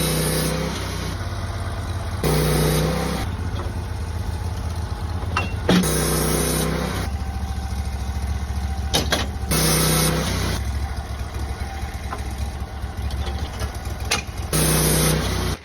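Sawmill's engine running steadily while milling a cedar log, with louder stretches about a second long near the start, at about two and ten seconds in, and near the end, and a few sharp clicks in the middle. It cuts off abruptly at the end.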